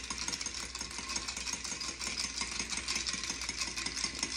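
A long metal bar spoon stirring ice cubes in a glass: a fast, unbroken clinking and rattling of ice and spoon against the glass.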